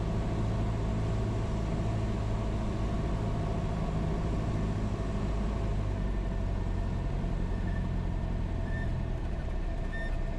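Cessna 172's piston engine and propeller droning steadily inside the cockpit on short final. About six seconds in the engine note changes as power comes back for the flare over the runway threshold. A faint high tone chirps a few times near the end.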